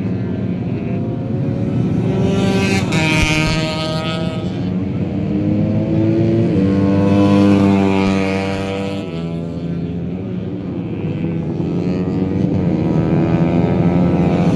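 Motor noise revving up and down in pitch, climbing over a couple of seconds and then dropping off sharply about nine seconds in.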